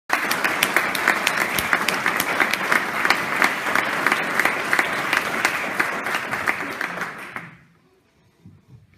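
Audience applauding: dense clapping that dies away about three-quarters of the way through.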